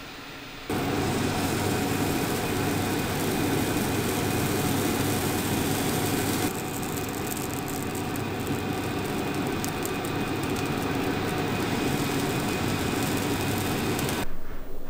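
Pancake batter sizzling in a hot frying pan: a steady sizzle over a low rush, with the crackling growing finer and busier about six seconds in, then cutting off just before the end.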